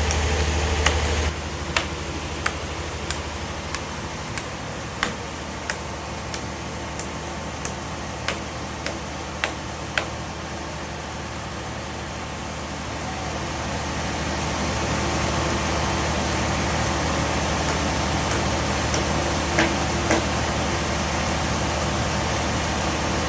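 An engine running steadily with a low hum. For several seconds a sharp click repeats about every two-thirds of a second, and the running grows louder partway through.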